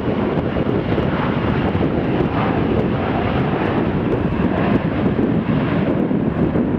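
Boeing 727 freighter's three rear-mounted Pratt & Whitney JT8D turbofan engines at approach power on final approach to land. The jet noise is steady and even, mostly low and middle-pitched, with no touchdown in it.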